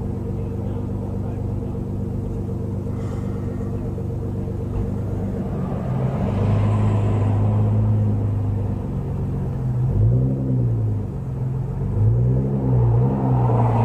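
Car engine idling with a steady low drone, then revved in short rises and falls of pitch, once about ten seconds in and again a couple of seconds later.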